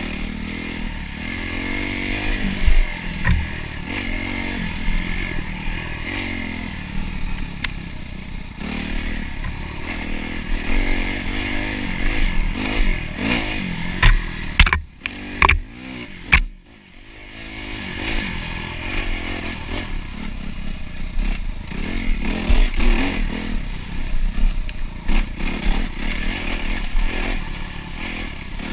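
Dirt bike engine running hard on a trail ride, its revs rising and falling constantly with the throttle. About halfway through come a few sharp knocks and clatter, and the engine briefly drops away before picking up again.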